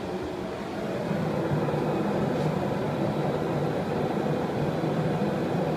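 Propane forge with Thermal Art Design burners running, a steady rushing noise of the burning gas that grows louder about a second in.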